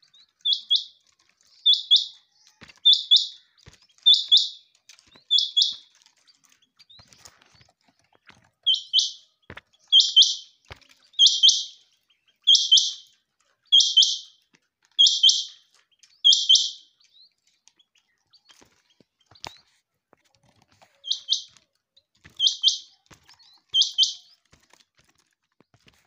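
Quail calling: a short, high-pitched call repeated about once a second, in three runs of five, seven and three calls with pauses of a few seconds between them.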